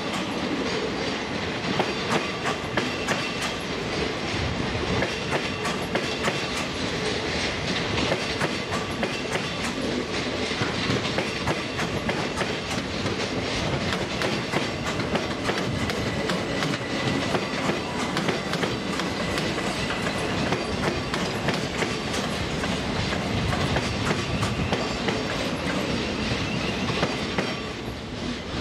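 Thameslink Class 700 (Siemens Desiro City) electric multiple unit rolling along the platform close by, a steady rumble with its wheels clicking over rail joints and points.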